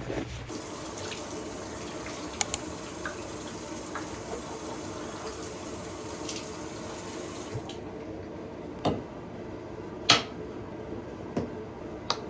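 Water running from a tap into a sink, with a few sharp knocks and clinks; the loudest knock comes about ten seconds in.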